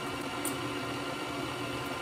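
Stand mixer motor running steadily, its dough hook kneading bread dough.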